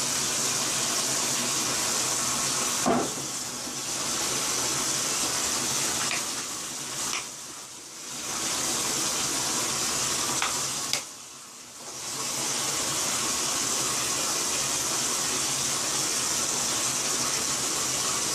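Bathtub tap running steadily with warm water while a dog is wetted down for a bath, the flow of water splashing in the tub; the sound dips briefly three times as the flow is interrupted.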